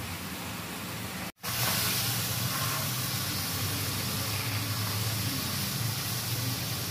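Steady hiss of chicken korma cooking in a large metal deg over a fire, steam and frying oil, with a low hum underneath. The sound briefly cuts out about a second and a half in, then carries on a little louder.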